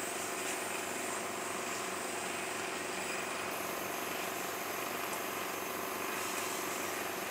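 Steady whir and hiss of a running flame photometer, its burner lit and the nebulizer drawing sample up the capillary.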